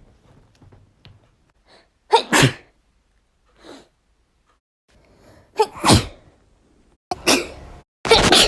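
A woman sneezing in a run of separate sneezes: one about two seconds in, then three more close together in the second half, the last one the loudest.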